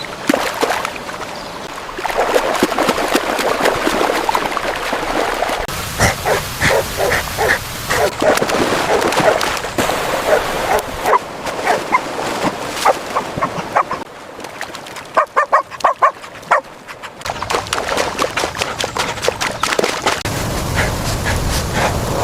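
Puppies whimpering and yipping: a long run of short, high cries, some in quick clusters, over a steady rushing background noise.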